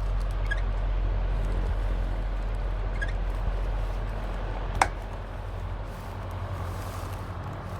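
Panasonic F-MX405-BC stand fan running with a steady low hum and its faulty abnormal noise. A sharp click comes a little over halfway through as the oscillating clutch knob is pushed down, and the noise then becomes quieter.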